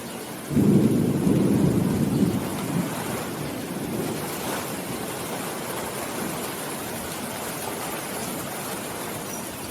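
Steady rain, with a sudden low rumble of thunder starting about half a second in that fades away over the next few seconds.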